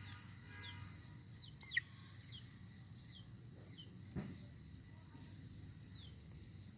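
Baby chicks peeping: a string of short, high, falling peeps every half second to a second, one louder near two seconds in, over a steady hiss.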